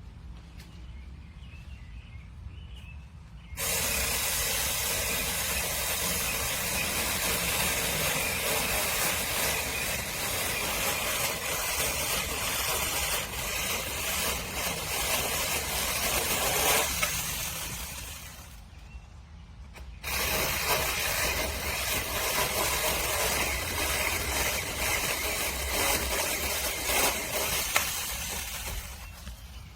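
Saker Mini 6-inch cordless electric chainsaw running in two long stretches, the first starting abruptly a few seconds in and running about 13 seconds, the second starting abruptly about 20 seconds in and running about 9 seconds.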